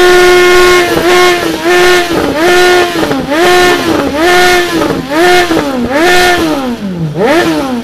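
Sport motorcycle engine revved hard again and again, about eight times, each rev climbing to the same ceiling, held there briefly at the rev limiter, then dropping back. Near the end a last rev peaks and falls away as the throttle is released.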